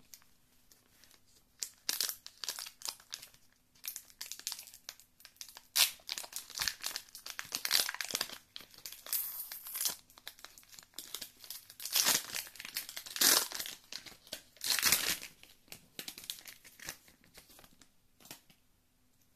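Foil booster-pack wrapper crinkling and tearing as it is opened by hand: a string of irregular crackly rustles that starts about two seconds in and dies away near the end.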